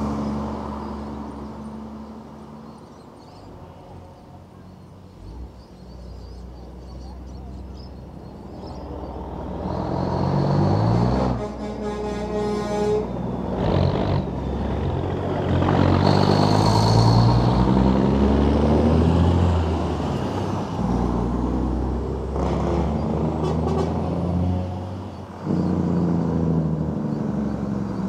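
Parade trucks driving past one after another, their diesel engines running and pulling by, loudest as a truck passes close in the middle. A truck horn sounds briefly about twelve seconds in.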